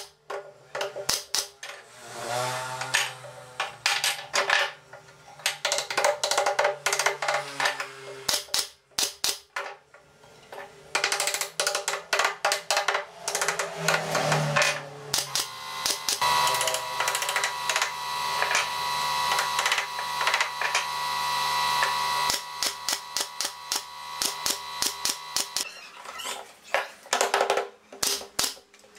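Hammer taps on pine slats and the sharp shots of a pneumatic brad nailer, in quick irregular runs. About halfway through, a steady tone holds for several seconds under the knocks.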